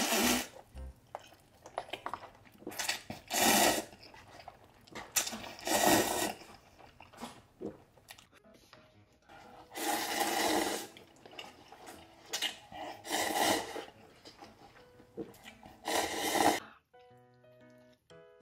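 A person slurping spicy instant noodles up close: about six loud, long slurps, each half a second to a second, with small mouth and chopstick noises between them. Background music with a short run of notes comes in near the end.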